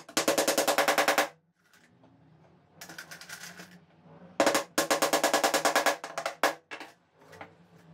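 Small hammer rapidly tapping tiny nails to fix a small metal hinge onto a red pine frame: a quick run of light taps, about ten a second, at the start, a second longer run from the middle, then a few single taps near the end.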